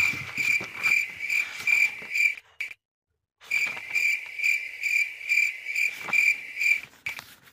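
Cricket chirping: a steady high trill pulsing about three times a second, which cuts out abruptly for under a second about three seconds in, then resumes.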